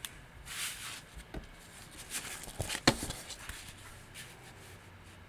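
Plastic-wrapped diamond painting canvas and packaging being handled: crinkling rustles and a few light taps, the sharpest about three seconds in.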